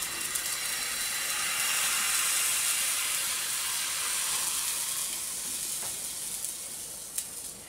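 Thin pancake batter sizzling in a hot, dry non-stick frying pan, a steady hiss that slowly dies down as the batter sets. A faint click near the end.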